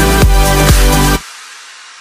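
Electronic dance background music with a steady beat, about two beats a second, that cuts off suddenly a little over a second in, leaving a faint fading tail.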